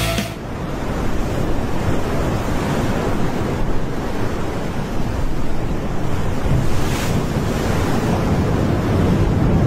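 Ocean surf crashing: a steady rushing of breaking waves, with a brighter hiss of a wave breaking about seven seconds in.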